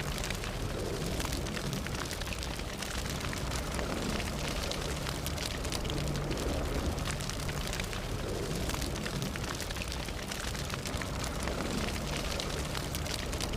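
Fire burning steadily with a low rumble of flames and many small crackles and pops.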